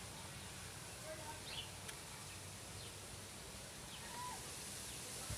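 Faint outdoor background noise with a few short, distant bird chirps.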